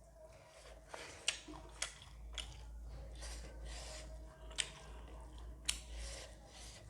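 Person eating close to the microphone: chewing with wet mouth sounds, broken by several sharp smacks or clicks.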